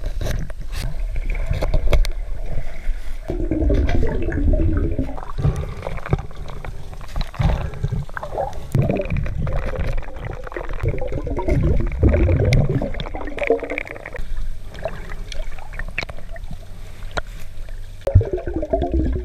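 Muffled underwater sound picked up by a submerged camera in shallow surf: water surging and gurgling in waves over a deep rumble, with scattered clicks.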